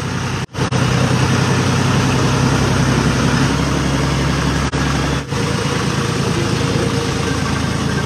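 A John Deere tractor's diesel engine running steadily while it drives through floodwater, with the sound dropping out briefly twice, about half a second in and around five seconds in.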